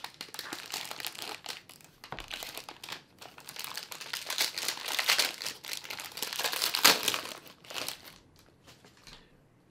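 Foil wrapper of a trading-card pack crinkling and crackling as it is opened and handled. The crackling dies away about eight seconds in.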